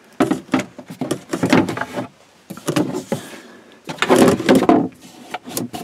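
Plastic battery-compartment cover being slid and set into its wooden opening. It makes a run of irregular scrapes and knocks, loudest about four seconds in.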